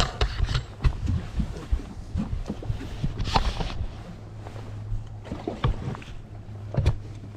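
Knocks and clatter of fishing gear being handled aboard a small fishing boat, over a steady low hum. A short burst of rushing noise comes about three seconds in.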